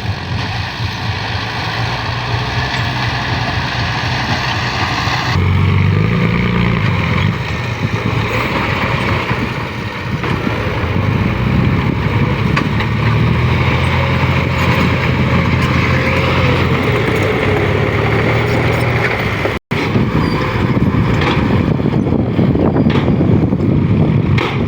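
Heavy truck's diesel engine running and revving, stepping up in pitch and level about five seconds in. The sound drops out briefly about twenty seconds in.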